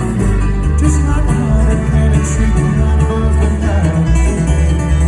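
Bluegrass band playing live on amplified stage sound, led by acoustic guitar over a heavy, booming bass line.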